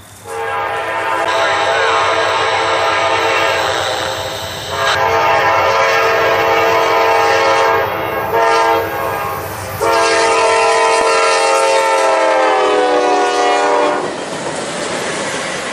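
Diesel locomotive air horn sounding a multi-note chord in four blasts, long, long, short, long: the grade-crossing signal. The last long blast drops in pitch as the light engines pass, and then the engines rumble by.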